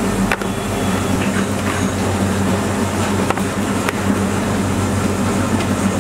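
Steady mechanical drone with a constant low hum, from the bakery's running machinery, with a few light clicks.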